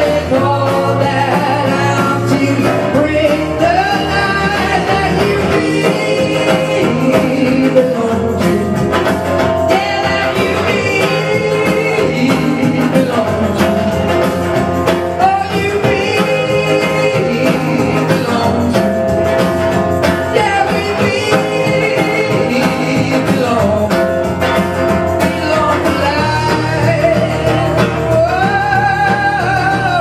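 A man singing a song while strumming an acoustic guitar.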